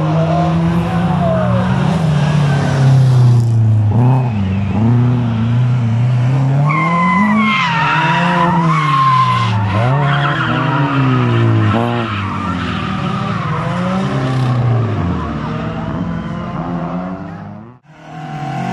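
Ford Sierra rally car's engine revving hard under load, its pitch climbing and dropping again and again with gear changes and lifts as it drives up and past. Tyres squeal through a bend from about seven to ten seconds in. The sound cuts off abruptly near the end.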